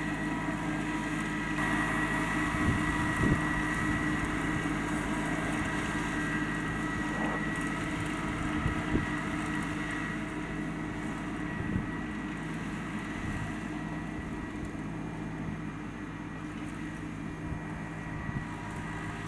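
New Holland four-wheel-drive compact tractor's diesel engine running steadily while dragging a chain harrow, with a few short knocks now and then.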